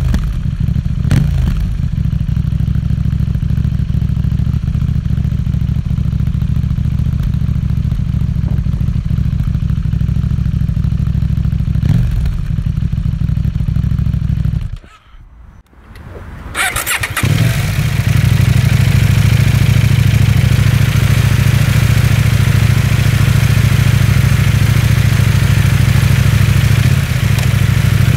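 KTM 790 Duke's parallel-twin engine with an Akrapovič exhaust idling steadily. About halfway through, the engine cuts out and there is a second or so of quiet. It is then started again and settles into a louder idle.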